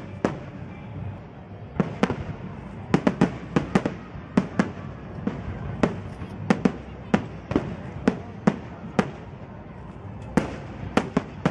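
Aerial firework shells bursting in irregular succession: about twenty sharp bangs, often several in quick clusters, over steady background noise.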